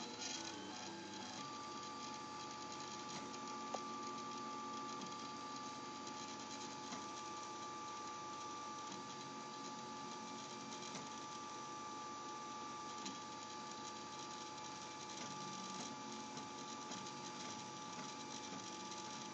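Open-frame FDM 3D printer printing: its stepper motors whine in two steady pitches over a fast, fine mechanical ticking as the print head and bed move, with a single sharper click about four seconds in.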